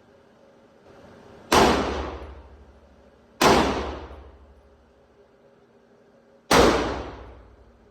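Three gunshots, each a sharp report that dies away in a trailing echo; the second follows the first by about two seconds, the third comes some three seconds later.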